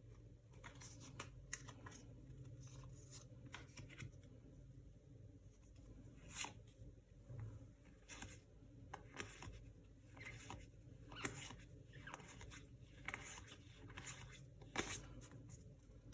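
Pokémon trading cards and their packaging handled by hand: faint, scattered rustles, crinkles and clicks, with sharper clicks about six and a half and fifteen seconds in.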